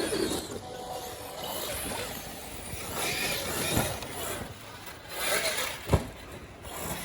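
Large 6S brushless electric RC truck driving on sand, its sound swelling and fading as it runs, with a sharp knock about six seconds in.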